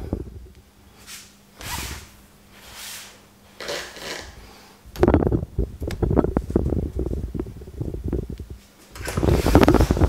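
Handling noise over a faint steady hum: a few soft rustling swishes, then from about five seconds in a run of dense crackling and knocks, ending in louder rustling.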